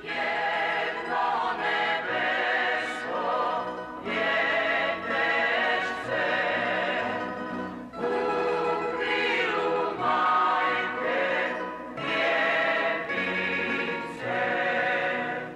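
Background music: a choir singing in phrases of about two seconds each, with wavering held notes, cutting off abruptly at the end.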